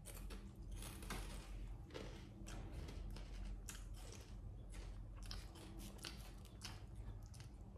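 Monkeys crunching packaged potato chips: a run of irregular, crisp crunches and crackles.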